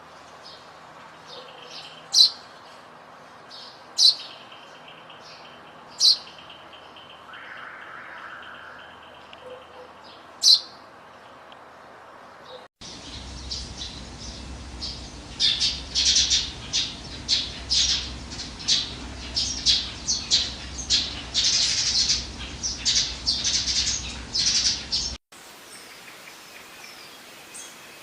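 Sparrows chirping: single loud chirps about every two seconds, then an abrupt change to a flock chirping rapidly and densely, which cuts off suddenly near the end, leaving only faint background.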